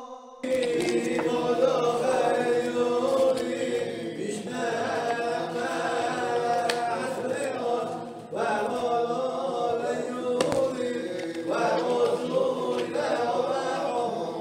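A group of men's voices chanting together, several pitches overlapping in a wavering melody, with a short breath-like pause about eight seconds in.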